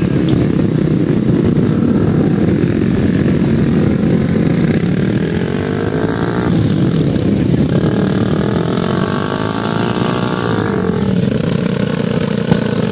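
KTM Duke 200 single-cylinder motorcycle engines running on a sand beach, with a steady low rumble. About midway one engine revs up and down, its pitch rising and falling.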